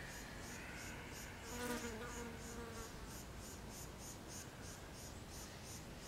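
Insects chirping in a steady, high-pitched rhythm, about three pulses a second. A faint, drawn-out pitched sound comes in about one and a half seconds in and fades after about a second.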